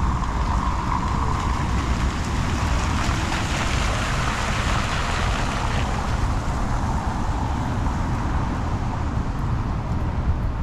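Street traffic noise on wet streets: a steady low rumble with a hiss that swells about three to six seconds in as a vehicle passes.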